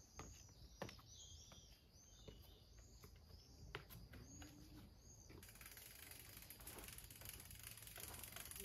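Faint bird chirping: a series of short arched chirps, about two a second, that stops about five seconds in. A few soft footsteps on stone steps sound under it, followed by a faint steady hiss of outdoor background.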